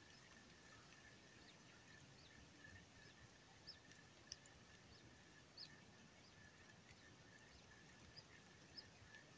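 Near silence: faint pond-side ambience with a steady faint high tone and scattered short, high bird chirps every second or so.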